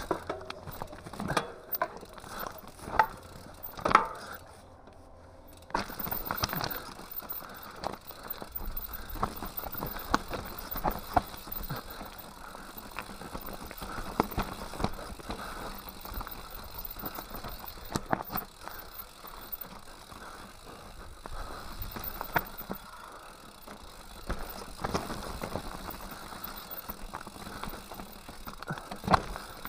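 Enduro mountain bike rattling down a rocky singletrack, with sharp knocks as the tyres hit stones over a steady rush of tyre noise, and a short lull about five seconds in.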